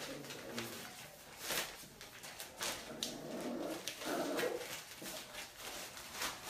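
Young puppies giving a few short, soft calls, amid scattered rustling and light knocks.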